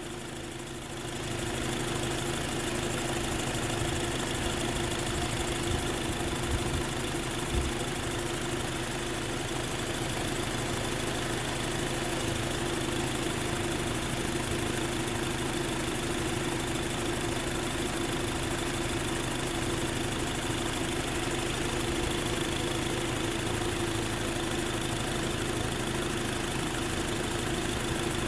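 A 2010 Acura TSX's engine idling steadily, a constant hum that gets a little louder about a second in.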